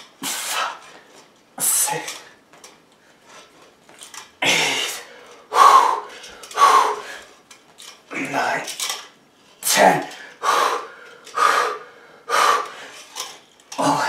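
A man's hard, voiced breaths and grunts, one with each one-arm push-up, about a dozen in all and coming roughly once a second from about four seconds in. Between them the steel handcuff chain clinks against the chair leg it is locked to.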